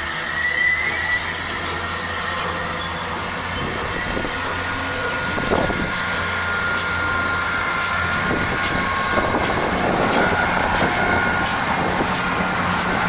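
South Western Railway class 159 diesel multiple unit running past with a steady diesel hum, growing louder as it nears. Its wheels click over the rail joints, and the clicks come more quickly as it goes.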